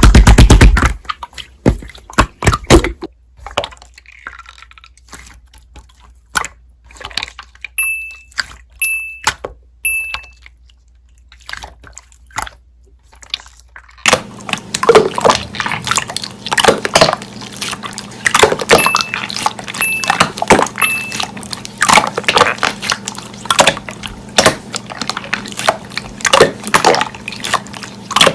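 Slime being squished, poked and stretched by hand: many irregular wet clicks and pops, with a brief loud burst at the very start.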